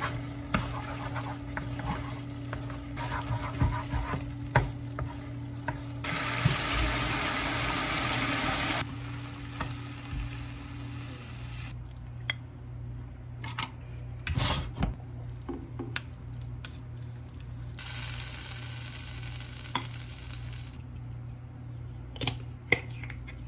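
Pasta sizzling in a frying pan as it is stirred and tossed with wooden tongs, with scattered clacks of the utensils against the pan and plate. A louder hiss rises for about three seconds twice, once early and once near the end, over a steady low hum.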